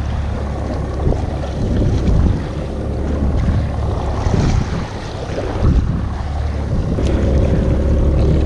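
Wind buffeting the microphone over rough, choppy sea on a small open boat, with the boat's Evinrude E-TEC 90 hp outboard running steadily at trolling speed underneath.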